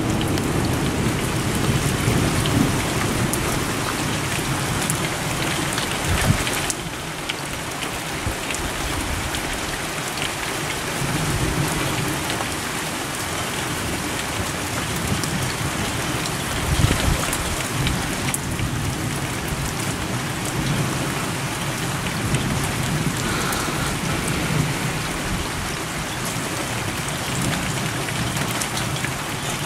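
Heavy rain pouring down steadily in a thunderstorm's core, with low rumbles of thunder and two brief thumps, about six seconds in and near seventeen seconds.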